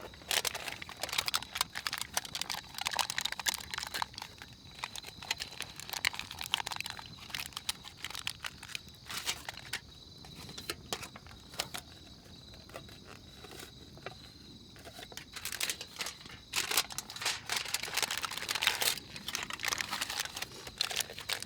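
Aluminium foil crinkling and rustling in irregular bursts as chestnuts are wrapped in it for roasting, busiest in the first half and again in the last few seconds. A steady high insect trill runs underneath.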